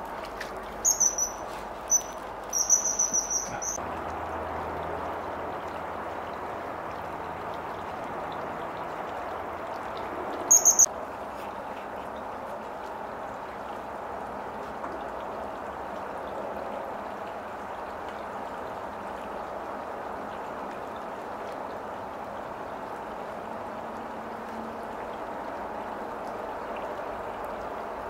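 Common kingfisher giving high, shrill piping calls: a few short notes, then a quick run of them in the first four seconds, and a short burst about ten seconds in. A steady rush of running water lies under the calls.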